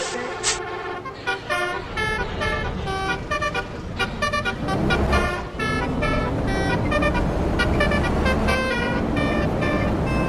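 Basuri telolet bus horn playing a quick melody of short, changing notes. A bus engine's low rumble joins in about halfway through.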